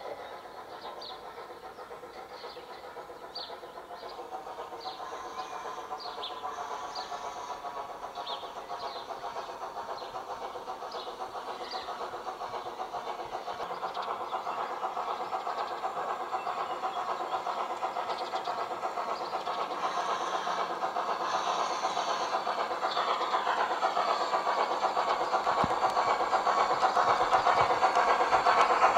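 A train approaching: a steady running noise growing louder throughout, with light clicks scattered through the first half.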